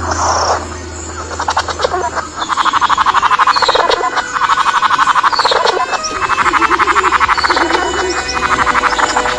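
A frog calling in repeated bouts of rapid pulsed croaks, each bout about two seconds long, with a few short higher chirps over them.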